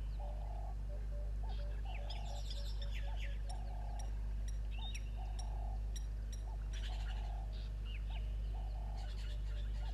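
Birds calling: a low call repeated about every second and a quarter, with higher chirps and twitters over it. A steady low hum runs underneath.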